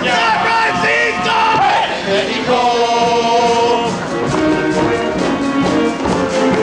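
Music from a live stage song-and-dance number: a group singing over the band, with a long held chord about halfway through.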